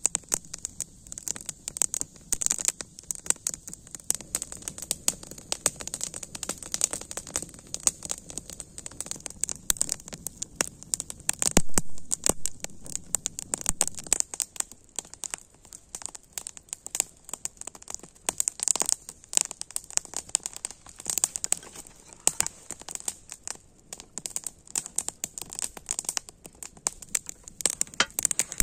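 Wood campfire crackling with dense, irregular sharp pops and snaps over a steady high hiss, with a louder flurry of pops about twelve seconds in.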